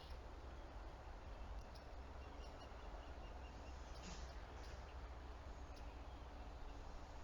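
A pet hiccuping: faint, short hiccups every second or so, over a steady low hum.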